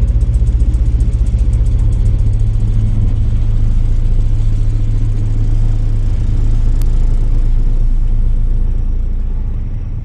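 Heavy construction machinery working close by, heard inside a shop as a deep, steady rumble. A fast rattling pulse runs through the first few seconds.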